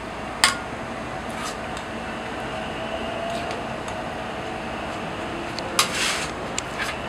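Metal spatula clinking and scraping against a steel paste tray and cast-iron taiyaki molds: a sharp clink about half a second in, then another clink near the end followed by a short scrape and a few light ticks, over a steady background hum.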